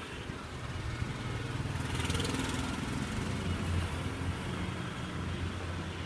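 Hot oil sizzling around undampori fritters deep-frying in a large iron kadai, over a steady low rumble. The sizzle brightens briefly about two seconds in.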